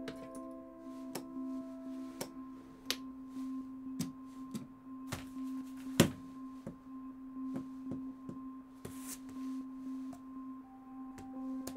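A steady low hum with a fainter high tone above it, under scattered small clicks and taps, and one sharper tap about six seconds in. A few soft musical notes come in near the end.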